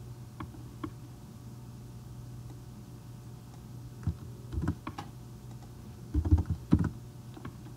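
Scattered clicks and taps of a computer keyboard and mouse, a few single ones early and two denser clusters in the second half, over a steady low hum.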